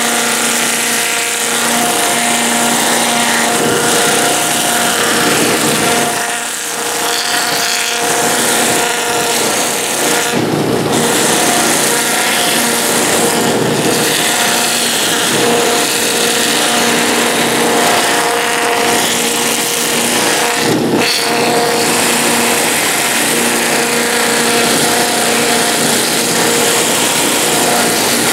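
Electric motor driving a Sand-O-Flex 320-grit flap sanding wheel against a carved wooden piece, a steady hum under a loud whirring, rasping noise that eases off briefly three times. It is taking the sharp edges off the knife cuts of the carving.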